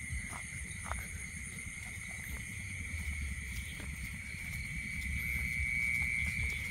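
A steady, high-pitched night chorus of small animals, one unbroken chirring tone that grows louder about five seconds in, over the low scuffing of someone walking on a grassy bank.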